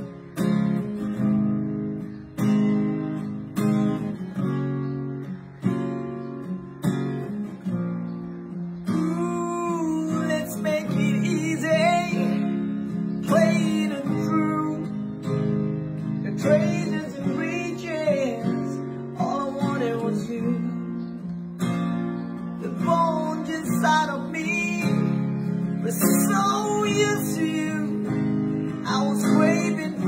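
Acoustic guitar strummed alone for about the first nine seconds, then accompanying a man singing in English.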